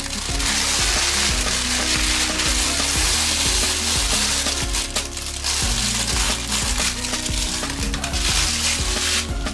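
Food sizzling in a hot pan, a steady hiss that dips briefly about halfway through and again near the end, over soft background music.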